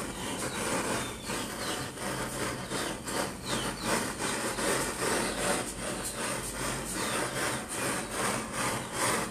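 Hand-held jeweller's torch blowing its flame, fed with air by a foot-pumped bellows, making a pulsing rushing noise.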